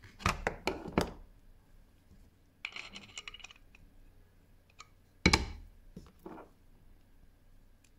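Small metal tools and parts being handled on a workbench: a few quick metallic clicks, a short rattle, then a sharp metal clack about five seconds in and a lighter one just after.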